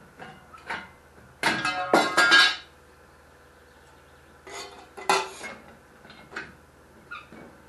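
Thin iron sheet being cut and handled with a hand lever shear: a ringing clatter of sheet metal about a second and a half in, the loudest part, then scattered clanks and clinks of the sheet and shear.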